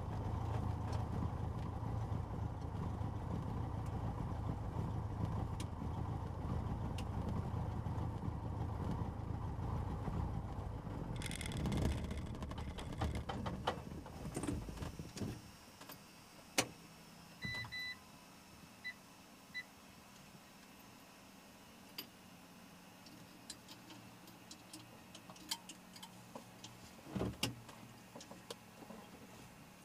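Cessna 150's four-cylinder Continental O-200 engine running at idle, then winding down and stopping about 15 seconds in. Afterwards scattered clicks and knocks, and a few short high electronic beeps.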